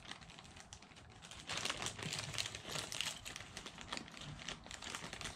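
Hands rummaging through small engine parts on a workbench, a quick run of light clicks and rustling that gets busier about a second and a half in.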